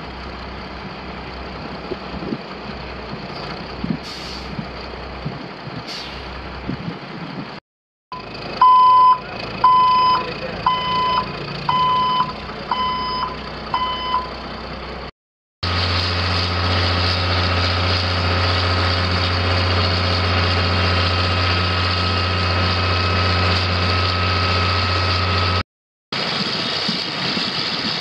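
A Bell B25B articulated haul truck's six-cylinder ADE366TI turbo diesel running. In one stretch its reversing alarm sounds about seven beeps roughly a second apart over the engine. Later the engine runs steadily with a strong low hum.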